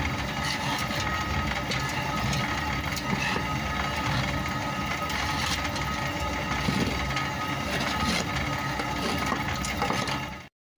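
Traditional water-powered stone grain mill running, the millstone grinding grain into flour with a steady, unbroken grinding noise; it cuts off suddenly near the end.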